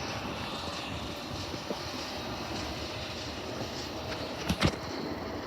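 SEPTA Silverliner V electric passenger train running past, a steady rumble of wheels on rails with a couple of sharp clacks about four and a half seconds in.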